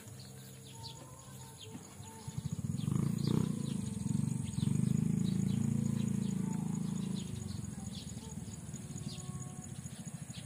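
Birds chirping over a steady high insect buzz. A louder, low pulsing drone swells up about two seconds in and fades out over the next five seconds.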